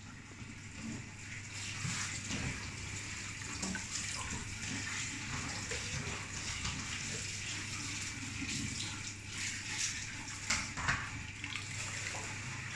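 Steady running or splashing water, like a tap, over a steady low hum, with a few light knocks about two seconds in and again near the end.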